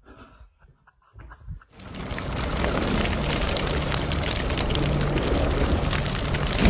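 Faint rustling at first, then about two seconds in a logo sound effect starts: dense fire-and-spark crackling over a low rumbling drone, swelling slightly near the end.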